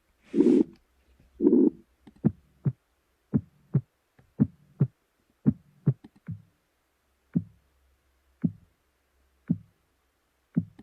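Synthesized tinnitus-simulation sounds. Two soft low thumps come first, the first with a brief hiss. They are followed by sharp, short clicks at uneven intervals, an arrhythmic clicking like that meant to mimic middle ear myoclonus.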